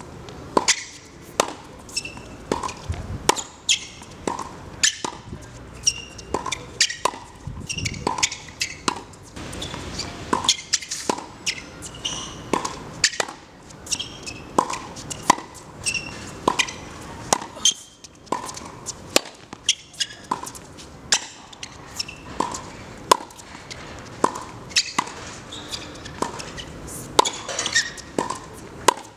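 Tennis balls being struck by racket strings and bouncing on a hard court: a string of sharp pops, irregular but about one or two a second.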